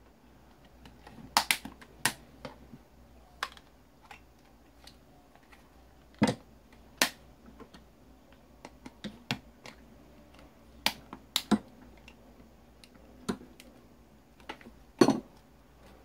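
Irregular sharp clicks and knocks of tools and hard plastic parts as a Dyson SV10 cordless vacuum's motor and battery unit is taken apart, roughly one or two a second, the loudest near the end.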